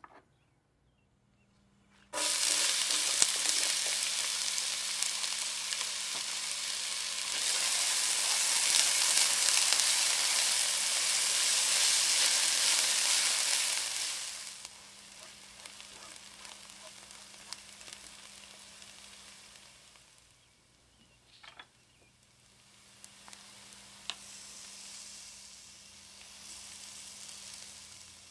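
Food hitting hot oil in a pot and frying with a loud sizzle that starts suddenly about two seconds in, then settles to a softer sizzle about halfway through. A few light clicks of a utensil stirring come later.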